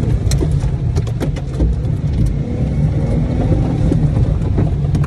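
Jeep Wrangler's engine pulling hard through mud, heard from inside the cabin as a steady low rumble. Mud and water splatter and knock against the windshield and body again and again at irregular moments.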